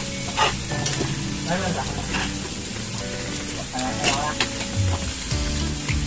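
Slices of pork belly sizzling and frying in a grill pan, a steady crackling hiss, with a couple of sharp clinks of utensils against dishes.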